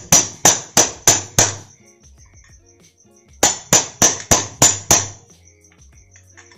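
Hammer striking a steel wrench on a scooter's centrifugal clutch assembly with sharp metallic blows. They come in two quick runs of about five and six blows, roughly three a second, with a pause of about two seconds between.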